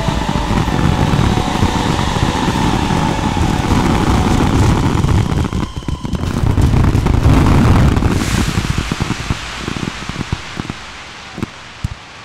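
Fireworks finale barrage: dense rapid bangs and crackling, loudest a little past the middle, then thinning to a few last scattered bangs near the end.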